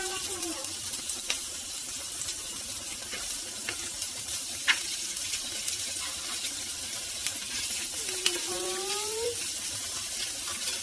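Diced ham and onion sizzling in a non-stick frying pan, with light clicks from a wooden spoon stirring them.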